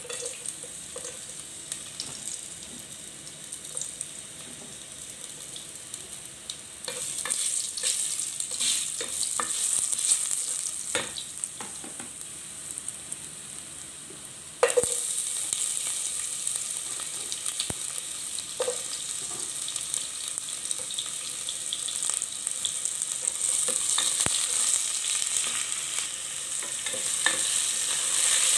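Chopped garlic and then onion and tomato frying in hot oil in a nonstick pot: a steady sizzle that starts suddenly, grows louder in steps, with a sharp jump about halfway through. A utensil stirs and clicks against the pot.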